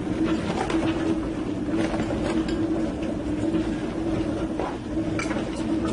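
Olive press machinery running with a steady low hum that pulses about twice a second.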